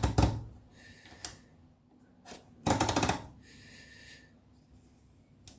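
Rapid mechanical clicking from an oscilloscope's front-panel knobs and detented rotary switches being turned. There is a cluster of clicks at the start, a couple of single clicks, and a quick rattling run of clicks about three seconds in.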